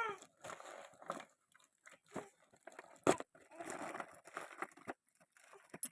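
Irregular rustling and crinkling of packaging being handled, broken by clicks, one sharp click about three seconds in the loudest.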